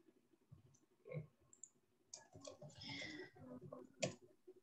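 Faint, scattered clicks of a computer mouse and keyboard.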